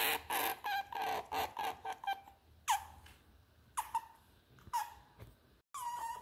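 Otter squeaking: high-pitched calls that each slide down in pitch. A quick run of short squeaks comes over the first two seconds, then single calls about once a second, and a longer held call near the end.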